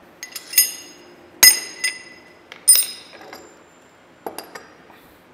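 Hammer tapping a steel drift in a boring mill spindle to knock out a Morse taper adapter holding a drill chuck: a series of sharp, ringing metal-on-metal strikes, three of them loudest about a second apart, then a few lighter clinks near the end as the taper comes free.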